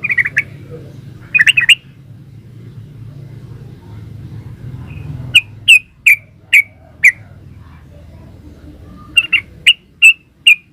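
Yellow-vented bulbul calling in short, sharp, chirping notes: a quick burst at the start and again about a second and a half in, then five separate notes about half a second apart in the middle, and another quick cluster near the end.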